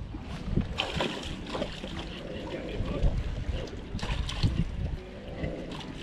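Wind gusting on the microphone, an uneven low rumble, with water noise and a few light knocks.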